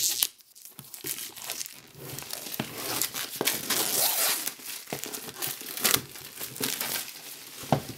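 Plastic shrink-wrap film being slit with a knife and then torn and pulled off a box, crinkling with many small crackles from about a second in.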